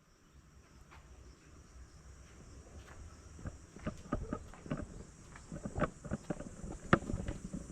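A steady high-pitched insect chorus, with irregular knocks and clicks that grow louder and more frequent in the second half, the sharpest about seven seconds in.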